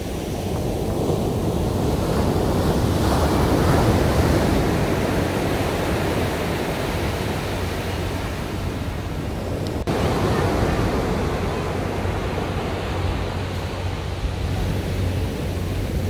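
Ocean surf breaking and washing up on a sandy beach: a steady rushing noise that swells about four seconds in.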